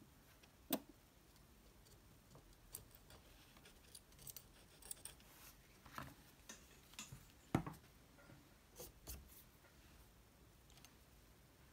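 Mostly quiet, with scattered faint clicks and taps from a circuit board and its parts being handled during desoldering with a soldering iron and desoldering wick; one slightly louder click comes about two-thirds of the way through.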